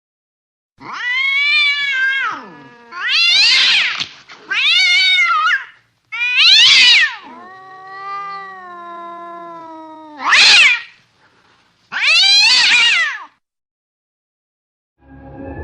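Angry cat yowling: about seven loud, drawn-out calls, each rising then falling in pitch, with a longer, lower moan in the middle. Music starts just at the end.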